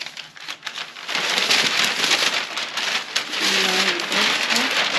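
Paper sewing pattern rustling and crinkling as it is handled, a dense crackling rustle that starts about a second in.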